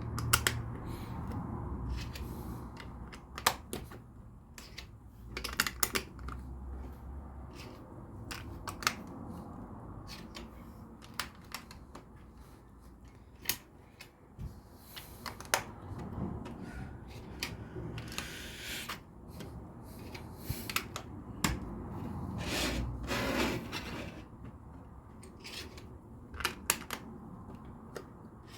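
LEGO pieces being handled and pressed together: irregular sharp plastic clicks, with a few short stretches of rustling.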